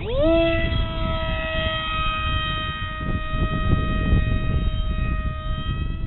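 Electric motor and propeller of a radio-controlled flying wing spinning up quickly to a steady high-pitched whine, then held at a constant pitch, with a low rumbling noise underneath.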